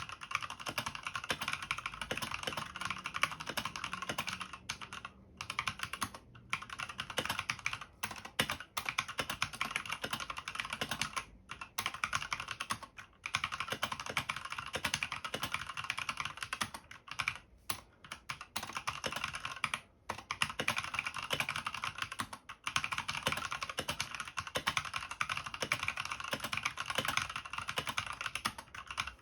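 Skydigital BT61 mechanical keyboard with stock red linear switches being typed on quickly: a dense, continuous stream of key clacks, broken by several short pauses.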